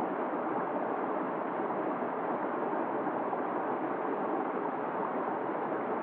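Small waterfall pouring steadily over rocks into a shallow pool, a constant rushing and splashing of water.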